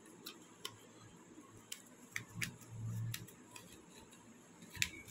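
Faint, scattered clicks and rustles of a sheet of paper being folded and creased by hand, with a couple of sharper clicks near the end.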